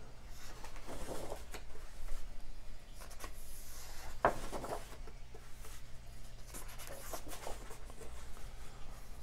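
Pages of a large hardcover book being turned by hand, with paper rustling and sliding against paper. A sharper page flap comes about four seconds in.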